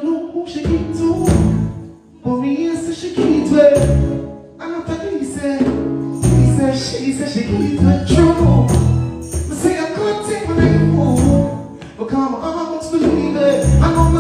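A man singing reggae into a microphone over a backing track with a bass line and percussion; the bass comes in stronger and more regular near the end.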